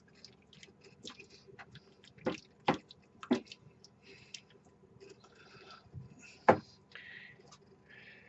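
Pan of browned stew beef in water heating toward a boil, popping and spattering with brief hissy sizzles. A few sharp clicks stand out, the loudest about six and a half seconds in.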